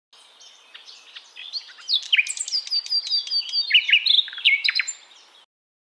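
Small birds chirping and twittering in a quick run of high, sliding notes, faint at first and then busier. It cuts off suddenly after about five seconds.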